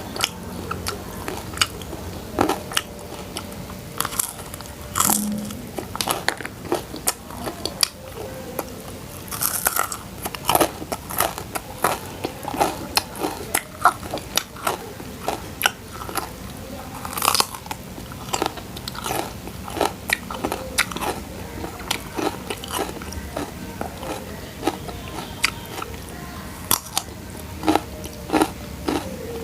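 A person biting and chewing crunchy food close to the microphone: a steady run of sharp, irregular crunches.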